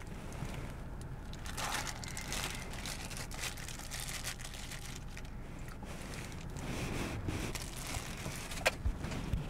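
A small plastic bag crinkling and rustling in uneven bursts as it is handled, with one sharp click near the end.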